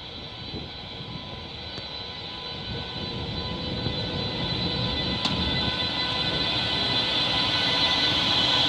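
DB class 101 electric locomotive passing close while hauling Intercity coaches: a steady high electrical whine over the low rumble of its running gear, growing louder as it comes near.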